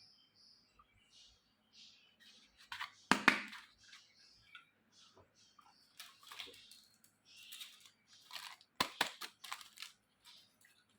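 Unpacking a miniature plastic toy kitchen set: packaging rustling and small plastic pieces clicking as they are handled. There is a louder knock about three seconds in and a quick cluster of sharp clicks near nine seconds.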